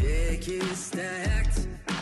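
Background music: a gliding melody over a deep bass beat that hits about every second and a quarter.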